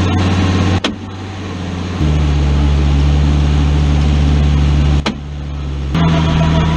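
Drivetrain of a truck on the move, heard from under the chassis: a steady low drone and hum that changes pitch and level abruptly a few times. This is the noise the owner suspects comes from the 4L60E automatic transmission or the transfer case.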